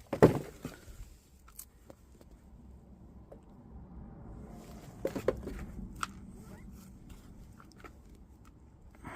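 Digging through soil in a potato planter: crunching and scraping of earth, with a sharp knock just after the start and a few clicks about five and six seconds in.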